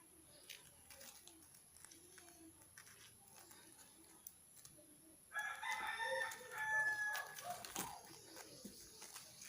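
A single loud animal call lasting about two and a half seconds, with several pitched tones, starting a little past five seconds in. Before it, only faint scattered clicks.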